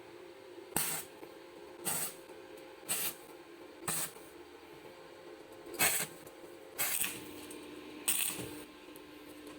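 A saw cutting wood in short strokes: seven brief hissing rasps, roughly a second apart with one longer pause, over a steady hum.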